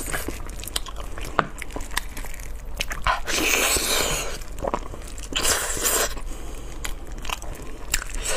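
Close-miked wet chewing and biting of soft braised pig's trotters, with many small mouth clicks and smacks. Two longer, louder noisy stretches come a little over three seconds in and about five and a half seconds in.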